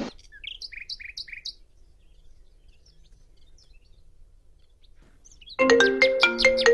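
A bird chirps a quick run of short notes in the first second and a half. After a quiet stretch, a mobile phone ringtone starts playing a melody about five and a half seconds in, and it is the loudest sound.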